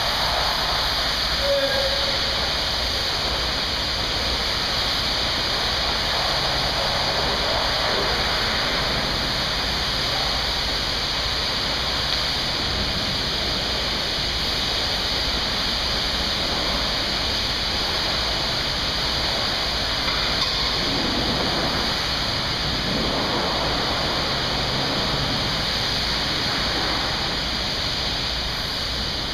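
High-pressure water spray hissing steadily against a truck in a truck wash.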